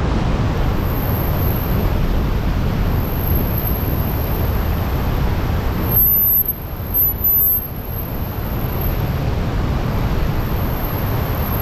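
Wind rushing over the microphone in wingsuit flight: a loud, steady rushing noise. About halfway through it loses some of its hiss and briefly dips and swells as the airflow over the helmet changes.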